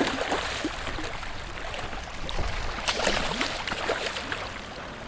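Water splashing and sloshing against a kayak as a hooked striped bass is landed, with a louder splash about three seconds in.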